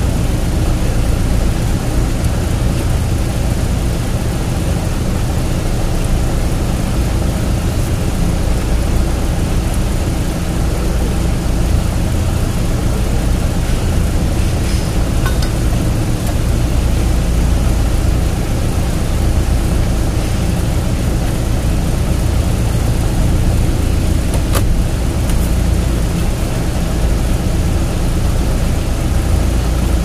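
Steady low mechanical drone, like an engine or machine running at an even speed, with a few faint sharp clicks over it.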